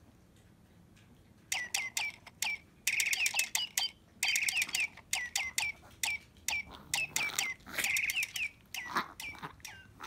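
Electronic toy bird chirping: a long run of short, downward-sliding tweets and quick trills, starting about a second and a half in.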